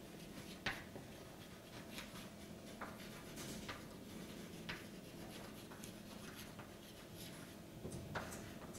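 Chalk writing on a blackboard: faint, irregular scratches and taps as each stroke of the chalk is drawn.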